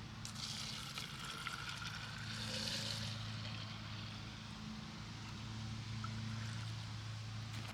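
A steady low hum with a hiss over it that swells twice.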